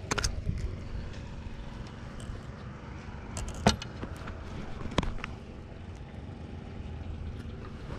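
Steady low hum with a few sharp clicks or knocks, the loudest near the middle and another about a second later.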